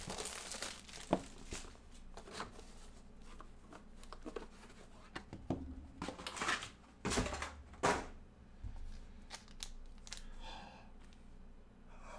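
Plastic shrink wrap being torn and crinkled off a sealed box of trading cards, then rustling and light knocks as the packaging and boxes are handled, in short separate bursts.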